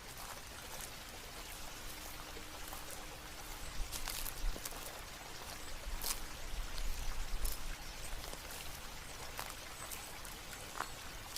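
Water trickling and dripping steadily, with scattered sharp drops landing. A low rumble swells between about four and eight seconds in.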